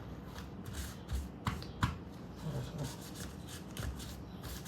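Cloth rubbing over an AR-15 rifle as it is wiped down, with handling noise and two sharp clicks about a second and a half in.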